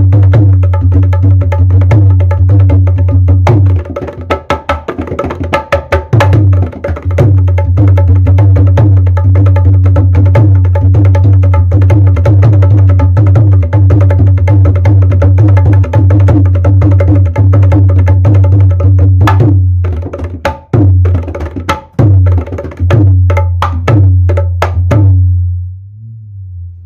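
Dholak played by hand in a fast dhamaal rhythm: rapid sharp strokes over a deep, steady boom from the bass head. The rhythm thins out briefly about four seconds in, and near the end breaks into separate strokes and stops just before the end.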